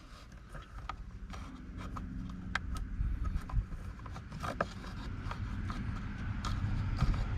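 Light rubbing and scattered small clicks of hard plastic being handled, as a wire tipped with masking tape is worked through a gap in a pickup's gauge cluster lens to pick up dust.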